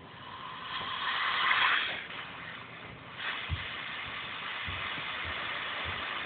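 Compressed air hissing out of a small airbrush compressor as the full tank is bled down. One hiss swells and fades over the first two seconds, then a second steady hiss starts about three seconds in and cuts off near the end, with a few soft knocks.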